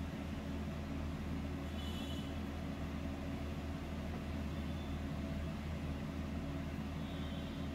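Steady low mechanical hum, running unchanged, with faint brief high ringing tones about two seconds in and again near the end.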